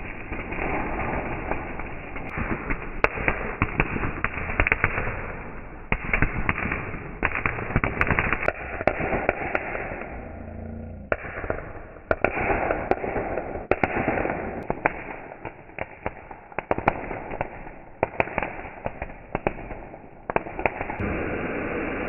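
Ground fountain firework spraying sparks: a steady hiss broken by many irregular sharp crackling pops, with brief lulls about halfway through and near the end.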